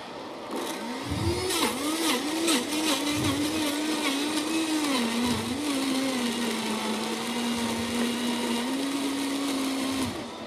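Vitamix high-speed blender blending bananas and dates, with the tamper pushing the fruit down onto the blades. The motor's pitch dips and recovers repeatedly while chunks rattle in the jar, then holds steady once the mix turns smooth, and the motor cuts off about ten seconds in.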